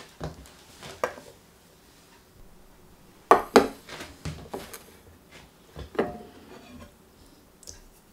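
Knocks and clinks of a small stainless steel colander being handled and set down on a wooden chopping board. The loudest knocks come a little over three seconds in, and one knock near six seconds leaves a brief metallic ring.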